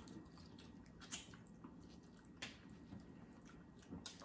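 Faint wet squishing and a few sharp crackles of seafood shells being pulled apart by plastic-gloved hands, with some chewing: shrimp and snow crab from a Cajun seafood boil being peeled and eaten.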